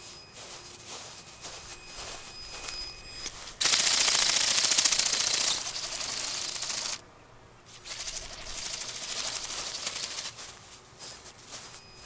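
Bionic Bird robotic bird's motor-driven wings flapping in a fast rattling buzz. It is loud and close for about three seconds near the middle, cuts off sharply, then comes back fainter for a few seconds.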